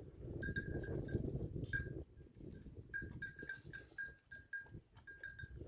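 Bells hung on buffalo clinking irregularly, several short rings a second, all on the same clear note, as the animals move. A low rustling noise under the bells for the first two seconds, then it drops away.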